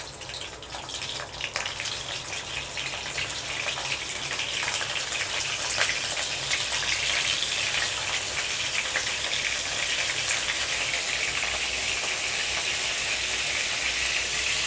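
Pieces of dried seer fish (vanjaram karuvadu) frying in hot oil: a steady crackling sizzle that grows louder over the first few seconds as more pieces go into the pan.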